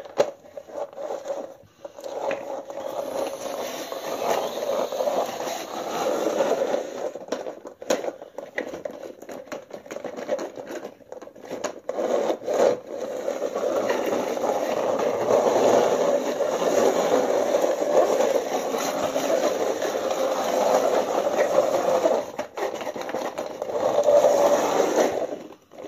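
Plastic toy car pushed along by hand, its plastic wheels rolling and scraping on the floor in a rough, steady rasp, broken by a few short pauses.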